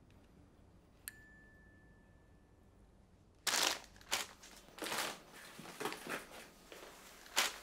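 A phone's text-message alert about a second in, a click and one held beep. From about three and a half seconds, someone rummages through things on a kitchen counter: a run of loud, irregular crinkling, knocking and shuffling.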